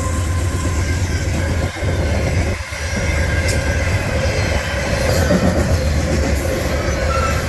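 CPKC freight train running by at close range: a steady rumble of locomotives and railcars on the rails, with faint wheel noise.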